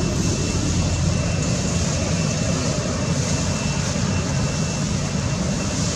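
Steady outdoor background noise, mostly a low rumble, with a faint steady high tone running through it.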